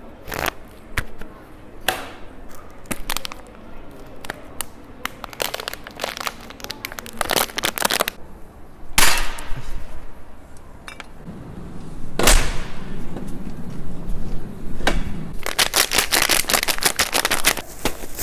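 Plastic being crinkled and popped: irregular sharp pops and cracks with crinkling between them, a couple of louder single cracks midway, and rapid, dense crackling near the end.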